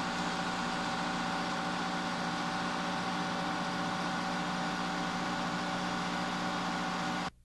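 Steady drone of aircraft machinery running on a flight line: a noisy rush with a low hum and a few higher steady tones. It cuts off abruptly near the end.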